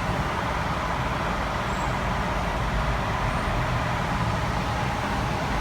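Steady rushing noise of heavy rain and a car's low road rumble, heard from inside the car.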